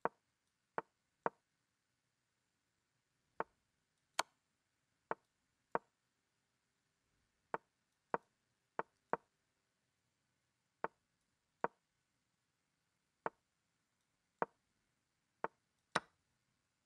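Online chess move sound effects: about seventeen short wooden knocks at uneven intervals, one for each piece moved in a fast blitz endgame.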